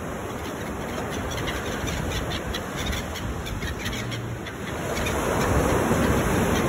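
A flock of gulls calling over the steady rush of surf breaking on a pebble beach; the surf swells louder about five seconds in.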